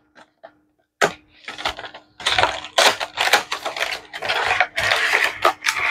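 A small cardboard retail box being opened by hand: a sharp click about a second in, then a dense run of rustling, scraping and clicking as the box flap and packaging are worked open.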